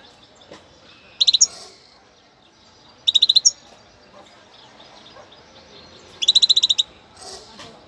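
First-year European goldfinch singing in short bursts of rapidly repeated high notes: one about a second in, one around three seconds in, and a longer run near the end.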